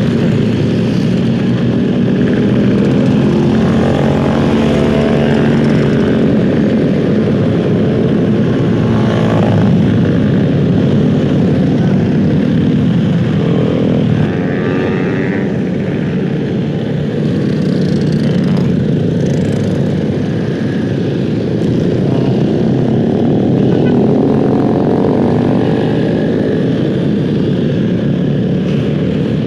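Motor scooter engines running on the move in a group ride, close to the microphone, with rushing wind noise; the engine pitch rises and falls several times as the rider and nearby scooters speed up and slow down.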